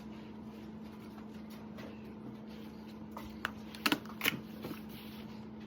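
A steady low hum with a short cluster of sharp clicks about three and a half to four seconds in.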